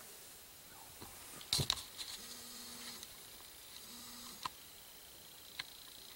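A few sharp handling knocks on the camcorder about a second and a half in, then the camcorder's zoom motor whining in two short runs as it zooms in, with a couple of faint ticks.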